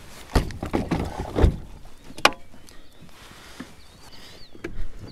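Hard plastic kayak gear being handled in the cockpit of a Hobie Pro Angler fishing kayak: several sharp knocks and clunks, most of them in the first two and a half seconds and one more near the end. A small bird chirps repeatedly in the background with short rising-and-falling calls.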